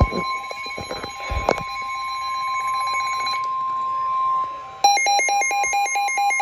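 NOAA Weather Radio 1050 Hz warning alarm tone: a steady, loud, high single tone that signals an imminent warning message. A few knocks sound in the first second and a half, and about five seconds in a fast, pulsing electronic beep starts up alongside the tone.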